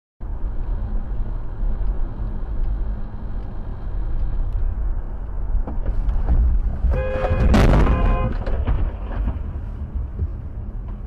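Low rumble of road and engine noise inside a moving car, with a car horn honking for about a second and a half about seven seconds in and a sharp, loud burst of noise in the middle of the honk.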